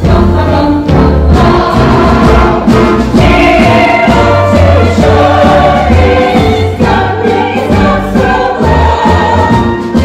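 Stage-musical ensemble singing in chorus over instrumental accompaniment with a strong, pulsing bass line.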